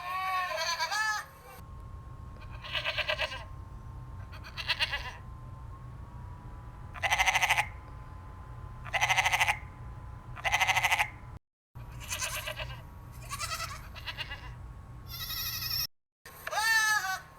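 Goats bleating again and again: about ten short, quavering bleats, one after another with pauses between them. The sound drops out briefly twice.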